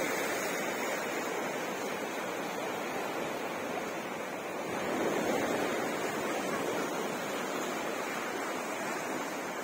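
Black Sea waves breaking on the shore: a steady rush of surf that swells slightly about halfway through.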